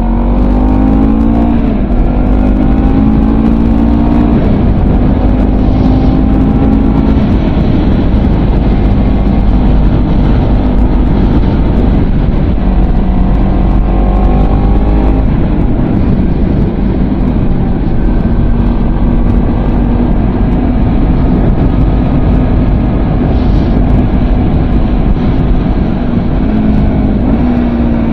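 Honda CBR250RR's 249 cc parallel-twin engine running through a WR'S SS-OVAL titanium slip-on exhaust, loud, with revs climbing in the first couple of seconds, again about halfway through and near the end, and holding steady in between.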